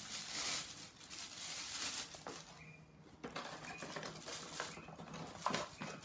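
Plastic wrapping crinkling and rustling as it is pulled off by hand, densest in the first couple of seconds, then lighter handling with a few small clicks and a sharper click near the end.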